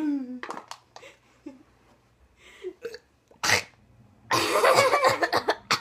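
Rough bursts of air forced from a girl's throat: the tail of a falling pitched sound at the very start, a sharp cough-like burst about three and a half seconds in, then a longer rough one starting about a second later.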